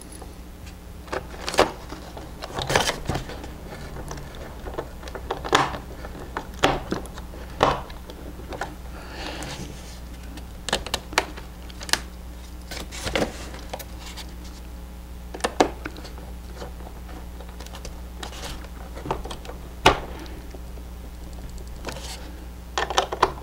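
Irregular small clicks and taps of a hand screwdriver and fingers on plastic as small screws are driven into a model plane's plastic landing-gear mount, with a brief scrape about nine seconds in.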